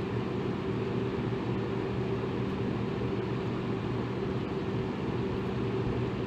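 Electric fan running steadily: an even whoosh of moving air with a low motor hum underneath.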